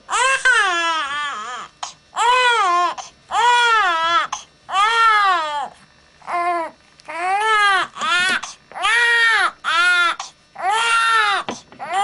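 Young baby crying hard in a string of wails about a second long, each rising and then falling in pitch, with quick catches of breath between; the baby is upset at being bathed and handled.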